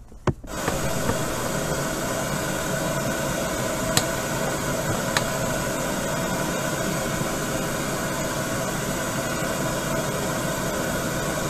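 Steady whirring machine noise, like a fan or motor running, with a few steady hums under a hiss, starting about half a second in. Two faint clicks about a second apart near the middle.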